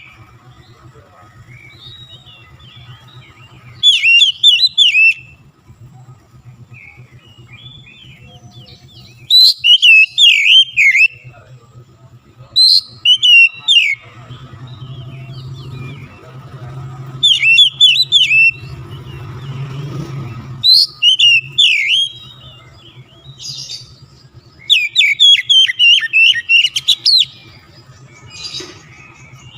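Oriental magpie-robin (kacer) singing in loud bursts of quick, varied whistled phrases, about six outbursts of one to two seconds each, over a faint steady low hum.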